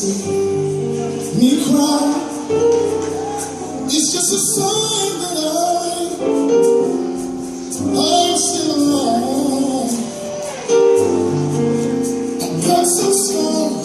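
Background music: a recorded song with a woman singing over held chords and bass notes.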